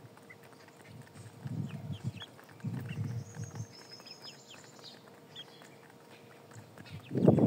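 Hens feeding on a concrete floor: many quick taps of beaks pecking at the ground, with soft low clucks in short bouts and a louder one near the end.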